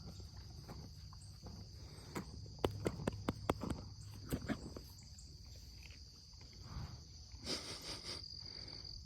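Insects chirring steadily at a high pitch. About two seconds in, a quick run of a dozen or so sharp clicks and knocks lasts a couple of seconds, followed by a brief rustle near the end.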